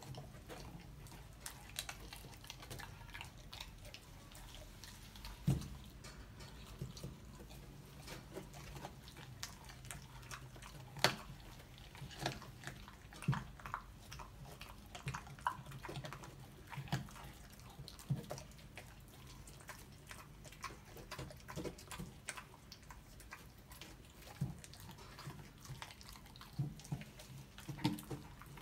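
A puppy chewing and gnawing frozen raw chicken bones, with irregular crunches and clicks of its teeth on the bone and the meat knocking on a wooden board. A low steady hum runs underneath.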